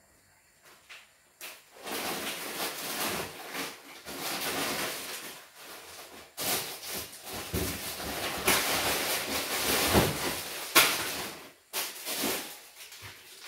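Paella pan sizzling and hissing on the heat as ingredients go in, starting about a second and a half in and rising and falling, with a few sharp knocks.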